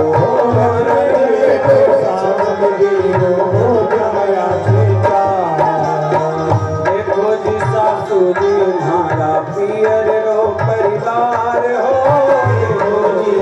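Devotional bhajan music: tabla drumming with repeated deep bass-drum strokes under a continuous wavering melody line.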